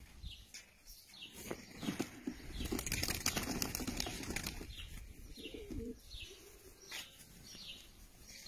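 A flock of Maltese pigeons flapping their wings, loudest in a spell of about two seconds near the middle, with high, short falling peeps repeating throughout and a short lower call a little past the middle.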